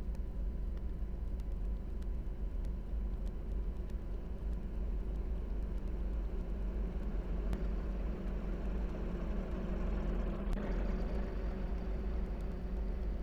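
Steady low rumbling noise, heaviest in the deep bass, with a faint steady tone above it and a few faint ticks.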